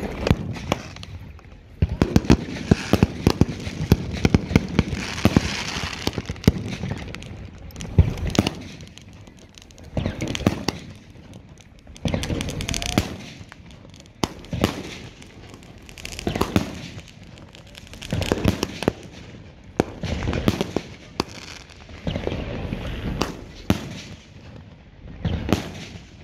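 "Adrenaline" consumer fireworks cake firing shot after shot: sharp bangs and crackling. A dense run of rapid reports comes early, then volleys of bangs about every two seconds.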